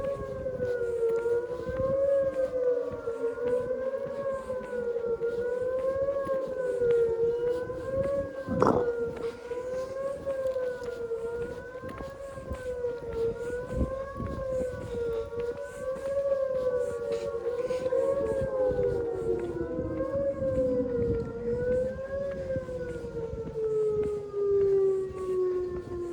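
Outdoor tornado warning siren sounding a steady wail that wavers up and down in pitch about every two seconds, then winds down toward the end. A second, lower siren tone falls slowly in the first half, and a single sharp knock comes about a third of the way in.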